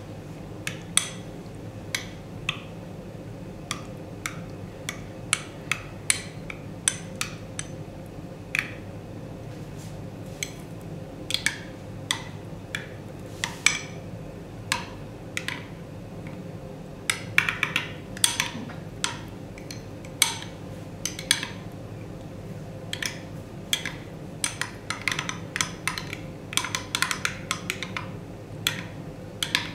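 A metal teaspoon stirring yogurt dressing in a glass gravy boat, clinking against the glass at irregular moments, sometimes in quick runs of clinks, over a steady low hum.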